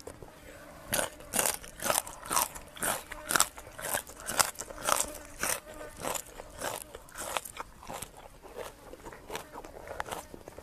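Crunchy biting and chewing of a raw green vegetable stalk, sharp crunches about twice a second, thinning out near the end.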